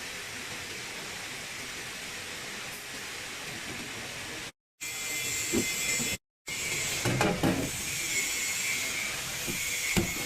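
Wine vending machine running a vend cycle: a steady hiss with a faint whine, and a few light knocks in the last few seconds. The sound cuts out completely twice, briefly, about halfway through.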